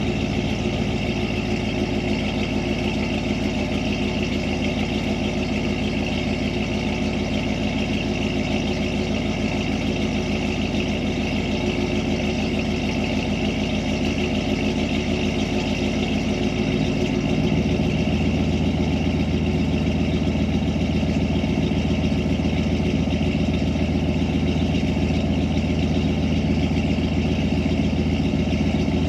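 1993 Ford Lightning's stock 5.8-litre V8 idling steadily after a cold start in freezing weather. About two-thirds of the way through, its low note shifts and gets a little louder.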